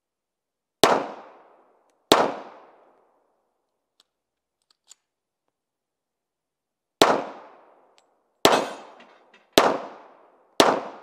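Pistol shots: two about a second apart, then after a pause of about five seconds four more at roughly one-second intervals, each with a short echoing tail.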